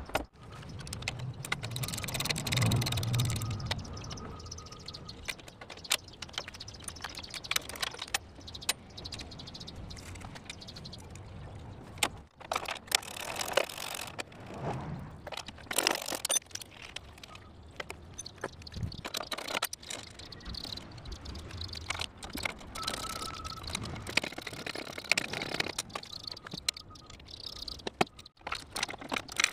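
Scattered metallic clinks, clicks and rattles of a wrench, bolts and steel fence rails as the rails are being unbolted from a cast-iron contractor table saw.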